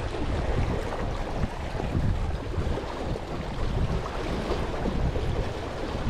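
Gusty wind rumbling on the microphone over small waves washing around rocks at the water's edge.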